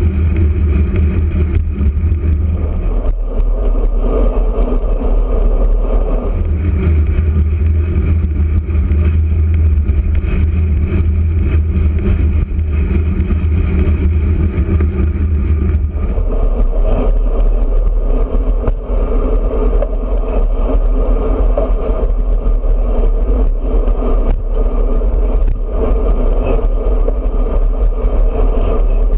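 Wind rushing over the microphone of a bicycle-mounted camera while riding a road bike at speed in a group, a loud steady rumble that shifts in strength a few times.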